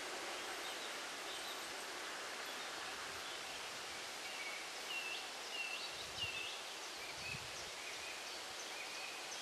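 Steady rustle of wind in trees and grass, with a small bird chirping repeatedly from about halfway through. Two soft low thumps come near the middle.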